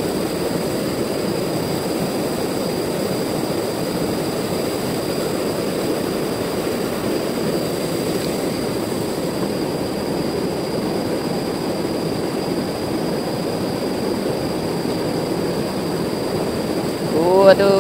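Steady rushing of a river running high and fast past boulders, with a thin, steady high-pitched tone above it.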